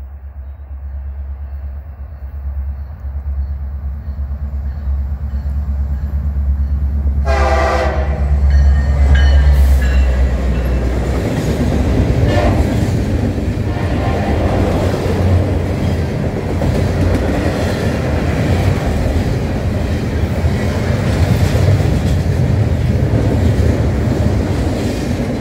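Two Norfolk Southern diesel locomotives approach and pass, their engine rumble building for about ten seconds, with a short horn blast about seven seconds in. Double-stack intermodal cars then roll by with steady wheel-and-rail noise and clickety-clack.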